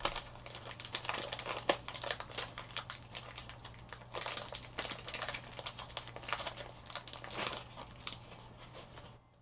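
Packaging crinkling as a small Anderson Powerpole power adapter is pulled out of it and handled: dense, irregular crackles that stop just before the end.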